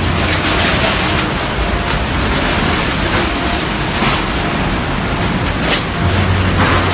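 Loud, steady rushing of typhoon wind and rain, with a few brief louder gusts or hits.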